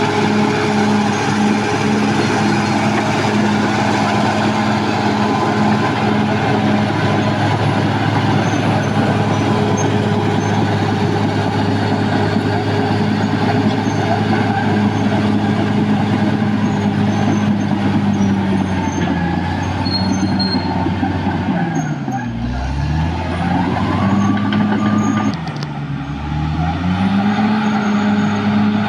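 Caterpillar D6R XL bulldozer's diesel engine running steadily at working revs. Twice in the last third the revs fall sharply and then climb back up.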